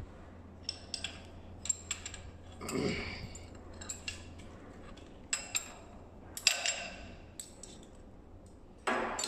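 Steel hex keys clinking as they are pulled from their holder and handled on a metal valve actuator: a dozen or so sharp metallic clicks, irregularly spaced, with a couple of longer, softer handling noises. A low steady machinery hum runs underneath.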